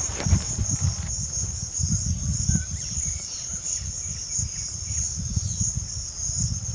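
Insects chirring steadily at a high pitch, over a fluctuating low rumble.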